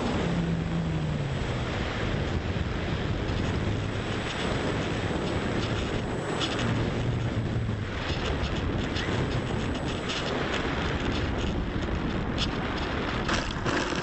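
Wind buffeting the microphone, with the low drone of a model airplane's electric motor and propeller fading in and out beneath it, and a few crackles near the end.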